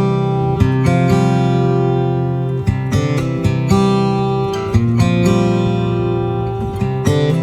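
Background music: acoustic guitar strummed in chords, about one strum a second.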